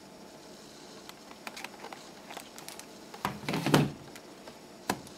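Handling noise on a desk: a few light clicks and taps, then a louder knock and rustle about three and a half seconds in, and one sharp click near the end.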